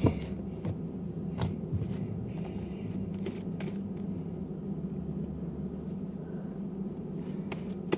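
Sticky homemade slime being kneaded and pulled by hand, giving scattered short clicks and squelches, mostly in the first half, over a steady low hum.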